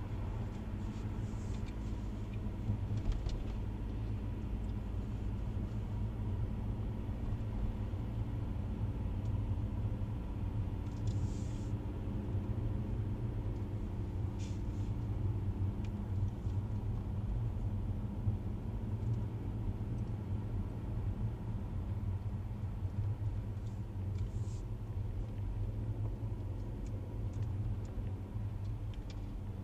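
Steady low rumble of a car driving slowly along a rough single-track road, heard from inside the cabin: engine and tyre drone with a few steady engine tones over it. A few brief ticks and rattles come and go.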